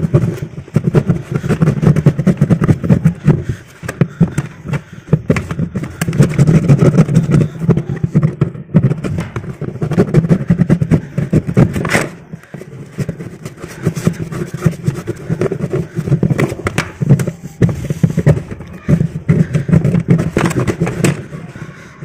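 Scraping and rubbing on the plastic washing-machine tub around the drain opening, by hand and with a hacksaw blade, cleaning old residue off the seat where the drain buffer fits. The strokes come in bursts of a second or two with short pauses.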